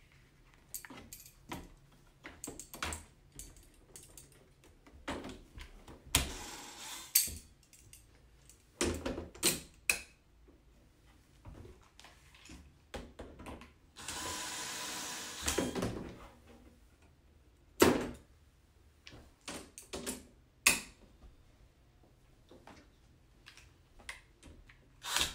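Hand assembly of a plastic grow-out pen: scattered clicks, knocks and scraping as screws are turned into aluminium rods and the parts are handled, with a few louder knocks and a rasping stretch of about two seconds midway.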